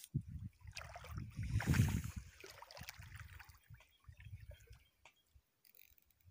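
Water sloshing and splashing around a person wading waist-deep, with a louder splashing rush about two seconds in and quieter lapping after.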